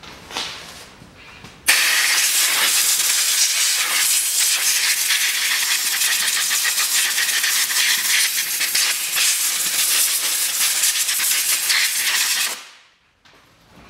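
Compressed-air blow gun blasting dust off the top of a car engine: a loud, steady hiss that starts abruptly about two seconds in and dies away about a second before the end.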